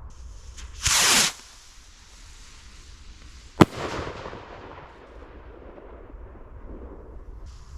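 Vivid Pyrotechnics Hellfire firework rocket launching with a short, loud whoosh about a second in, then a single sharp bang as it bursts about two and a half seconds later, trailing off.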